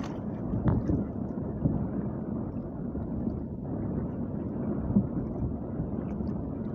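Wind buffeting the microphone over the low wash of choppy sea against a small outrigger boat's hull, with a few soft knocks along the way.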